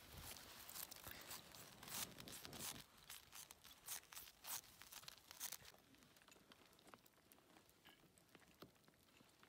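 Near silence, with faint scattered crackles and rustles through the first five or so seconds that then die away.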